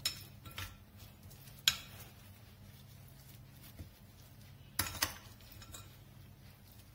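Metal spoon scraping and clinking against a bowl while scooping a soft filling, with a few sharp taps: one loud one about a second and a half in and two close together around five seconds in. A faint steady low hum lies underneath.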